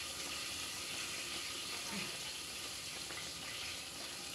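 Sour fish-and-vegetable soup (sinigang) boiling hard in a pan over a gas burner: a steady bubbling, sizzling hiss.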